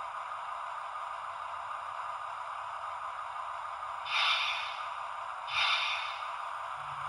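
A steady hiss with two short whooshes about a second and a half apart, a little past the middle.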